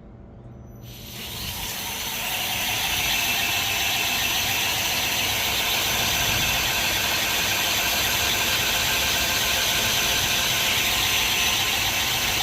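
Reaper 2x72 belt grinder, its motor run by a freshly fitted VFD, ramps up over about two seconds and then runs steadily under load, with a loud, even hiss from the abrasive belt grinding on metal.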